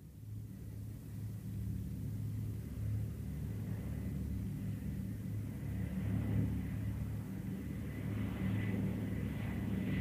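Propeller airplane approaching, its low, even engine drone growing steadily louder.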